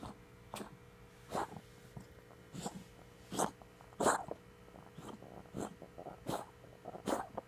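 A pet coughing in a long fit of short, sharp coughs, about ten of them, roughly one every half-second to second, the loudest a little past the middle.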